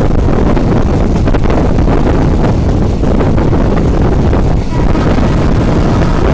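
Strong wind buffeting the microphone from a moving passenger train, with the train's running rumble underneath, loud and steady throughout.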